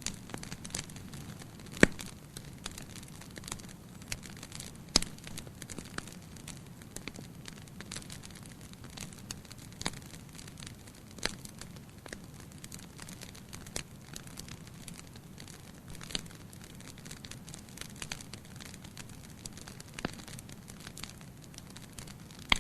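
Campfire crackling: irregular sharp pops and snaps from the burning wood over a steady low hiss of the flames, with a few louder pops, the loudest about two seconds in.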